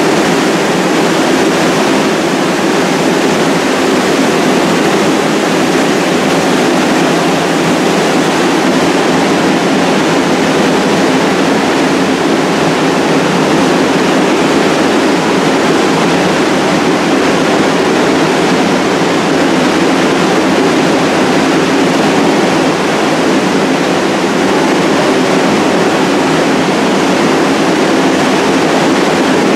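An IRT subway train of R62A cars standing at the platform with its onboard equipment running: a steady, loud hiss with a hum beneath it.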